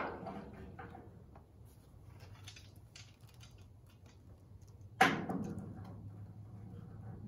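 A single sharp knock of a hand tool against the steel door sill of a Model A roadster body about five seconds in, ringing and dying away over about a second. Faint ticks and handling noise come before it.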